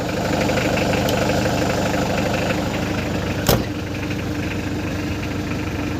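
Hyundai Grace H100 diesel van engine idling steadily, now running on a newly replaced fuel filter that cured its hard starting. A single sharp click sounds about three and a half seconds in.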